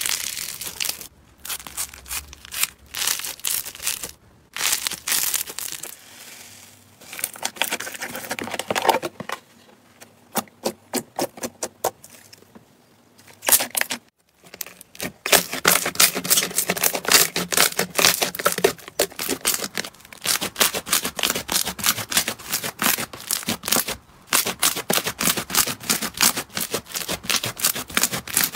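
Slime being squeezed, stretched and pressed by hand, giving wet crackling, clicking and popping in fast runs of small pops. There is a brief break about fourteen seconds in.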